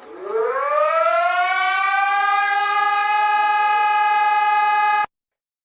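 Warning siren winding up in a rising glide over about a second and a half, then holding one steady tone, and cutting off abruptly near the end.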